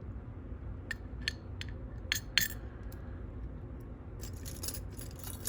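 Light metallic clicks and clinks from handling small lock parts and tools: about half a dozen scattered ticks, then a quick cluster of them near the end.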